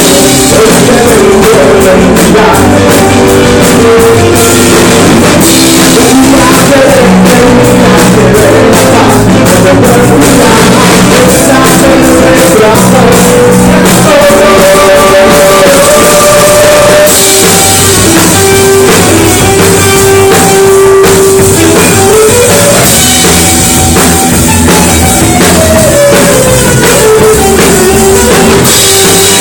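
Loud rock music from a medley: drum kit and guitar with a voice singing, the melody sliding down in pitch near the end.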